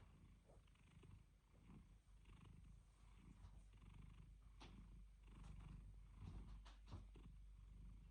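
Domestic cat purring softly, a low rumble that swells and fades in a steady rhythm, with a few faint clicks.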